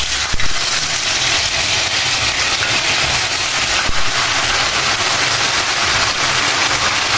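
Cubes of firm tofu frying in hot oil in a stainless steel pan: a loud, steady sizzle as more cubes are slid in, with a couple of brief knocks.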